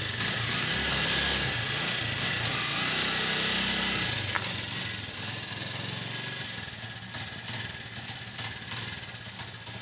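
Honda motorcycle engine driving a homemade cargo tricycle, running steadily. It is louder for about the first four seconds, then settles to a lower, even run.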